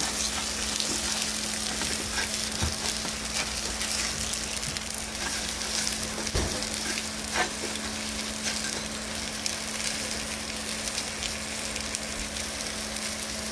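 Sausages sizzling in hot fat in a frying pan: a steady crackle with a few louder pops and spits.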